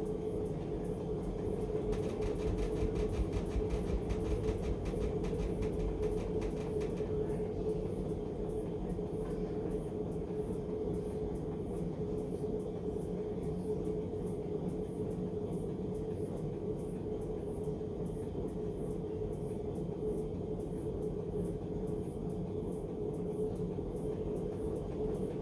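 Panasonic fully automatic washing machine running with a steady hum over a low rumble. This is the abnormal noise it began making during washing after about ten years of use.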